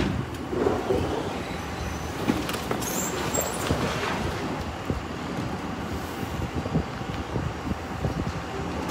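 An upholstered couch being pushed and slid across the cargo floor and rear edge of a box truck: a steady scraping rumble with irregular bumps, and a brief higher scrape about three seconds in.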